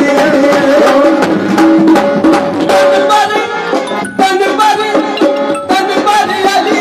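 Live harmonium and hand-drum music played through a PA system: the harmonium holds sustained notes while the drum keeps up quick strokes, with a short break in the sound about four seconds in.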